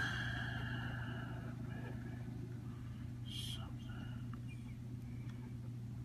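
A marker pen colouring a small paper card, with faint scratchy strokes, one more distinct about three and a half seconds in, over a steady low hum.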